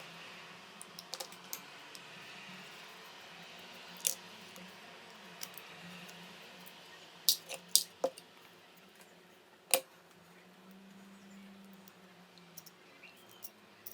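Metal parts of an old manual coffee grinder clinking and tapping against each other and the work surface as they are handled: a handful of sharp, separate clinks, some in quick pairs, over a faint steady hum.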